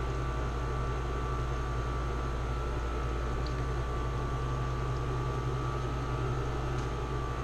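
Steady hum and rushing noise of an air-conditioning unit running, with a faint steady tone above it.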